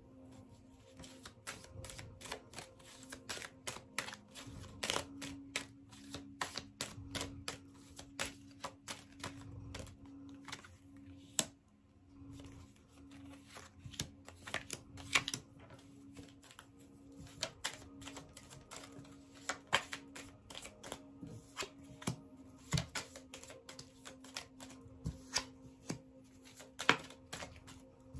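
A deck of fortune-telling cards being shuffled and handled by hand: a long run of irregular sharp snaps and clicks as the cards slap together. A faint steady low hum sits underneath.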